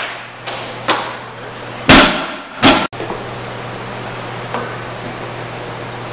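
A loaded barbell with bumper plates dropped from overhead onto a lifting platform, striking it with a few sharp impacts, the loudest about two seconds in. After that only a steady low hum remains.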